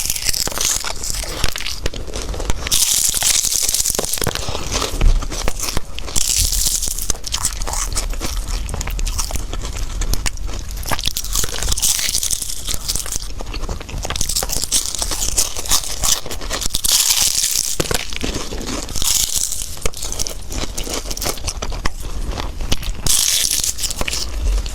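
Close-miked eating of egg tarts: biting and chewing, with crunching of the pastry crust coming in crisp bursts every four to six seconds.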